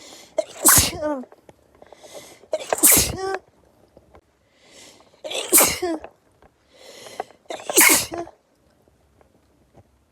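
A person's sneezing fit set off by perfume: four sneezes about two and a half seconds apart, each with a breathy intake before it and a short falling voice at its end.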